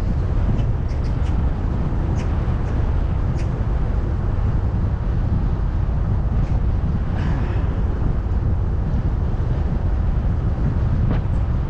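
Steady low wind rumble buffeting the microphone while riding a bicycle, with a few faint ticks.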